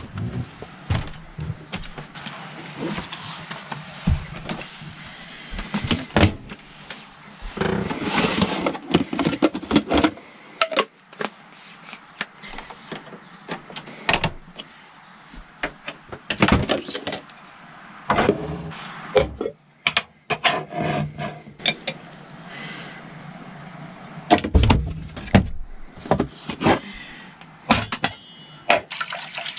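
Clatter of someone moving about a camper-van kitchen: the door and cupboards opening and shutting, and pots, plastic dishes, a plastic jug and a spoon knocked and set down. It comes as a string of sharp knocks and clicks, with a brief squeak about seven seconds in.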